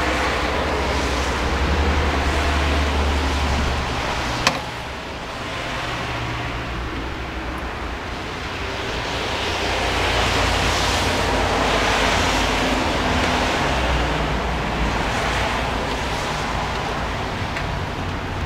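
Cars passing on a rain-soaked road, their tyres hissing on the wet surface, with one sharp knock about four and a half seconds in.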